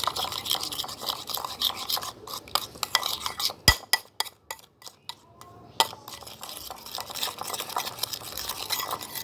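A spoon stirring liquid in a bowl, scraping and clinking against the sides over and over. There is one sharp clink about a third of the way through, then a short lull before the stirring picks up again.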